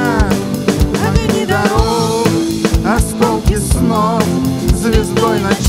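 Live band playing an instrumental passage: an electric guitar lead line with bent, wavering notes over a drum kit keeping a steady beat and sustained keyboard chords.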